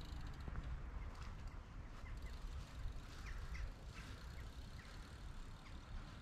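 Outdoor ambience: a steady low rumble with scattered short, high chirps from small birds.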